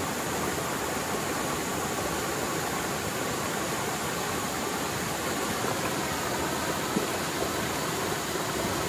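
Mountain stream flowing fast and full after heavy rain: a steady, even rush of water.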